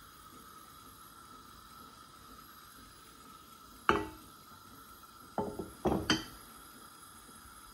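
A frying pan knocking against the gas hob's metal grate as it is tilted and set down: one sharp clank about four seconds in, then three more close together a second and a half later, over a faint steady hum.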